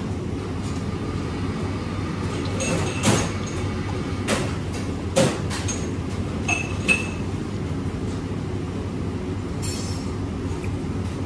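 Restaurant room noise: a steady low rumble with about five sharp clinks of crockery between about three and seven seconds in, the last two briefly ringing.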